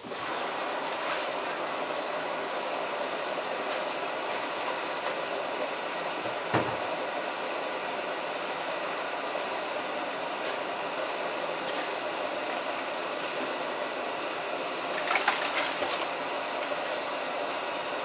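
Samsung WF8804RPA front-loading washing machine filling with water for the main wash of its hand-wash 30 programme: a steady rushing hiss of water through the inlet valve and detergent drawer that starts abruptly. A brief knock comes about six and a half seconds in, and a few clicks about fifteen seconds in.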